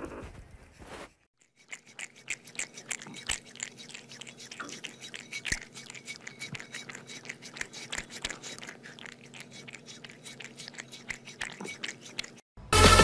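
A young kitten suckling milk from a feeding bottle: a fast, irregular run of wet little smacks and clicks from its mouth working the teat. A faint steady hum sits underneath.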